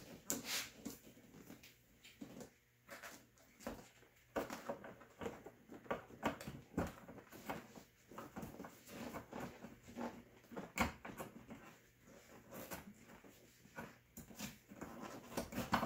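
Irregular rustling, scraping and small knocks of a vinyl seat cover being pushed and fed down into a truck seat by hand, with one sharper knock late on.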